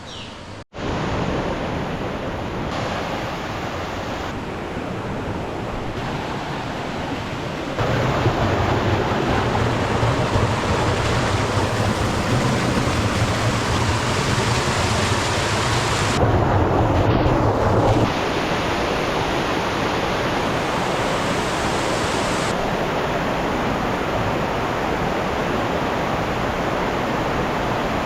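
Waterfall: a steady rush of falling water, changing abruptly in level several times and at its loudest and deepest in the middle stretch.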